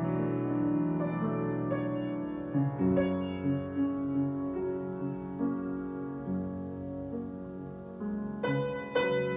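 Solo piano improvising slowly: held chords ring on while new notes come in every second or so, with a few quicker strikes near the end.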